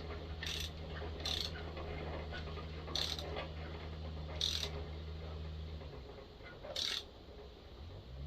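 Ratchet handle clicking in short, irregularly spaced bursts while turning a thread repair tap into a chainsaw's spark plug hole, cutting new threads in the cylinder. A steady low hum runs underneath, dropping out about six seconds in and returning near the end.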